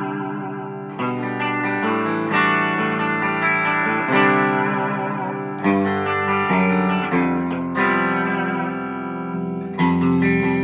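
Collings 360 LT M electric guitar played through an amplifier: chords struck several times and left ringing, their pitch gently bent and wavered with the guitar's smooth tremolo bar.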